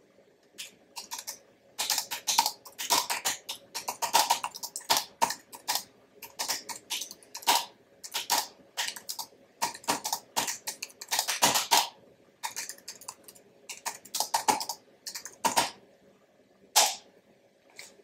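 Typing on an Apple aluminium wireless keyboard with low-profile scissor-switch keys: quick, light keystroke clicks in runs, with a brief pause partway and a single last keystroke near the end. This is the non-mechanical keyboard's typing sound, set against a mechanical keyboard.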